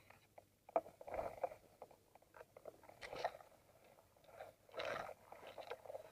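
Mountain bike on a rocky, overgrown trail: irregular crunching, clicking and scraping as the tyres go over loose stones and brush rubs along the bike and the rider. The loudest crackles come about a second in, around three seconds and near five seconds.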